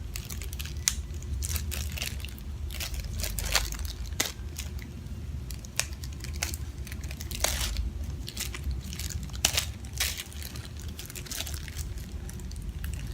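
Plastic packaging bag crinkling in the hands as it is pulled and torn open, in irregular crackles and small snaps, over a steady low hum.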